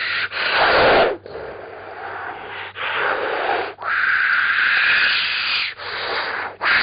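Breathy, hissing sound effects made by a vocal mimic: about five long hisses, each a second or more, broken by short pauses.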